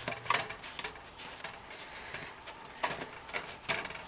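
Baked dog treats being flipped over by hand on a metal sheet pan: a few light clicks and taps as the treats and a small utensil meet the pan, one near the start and two near the end.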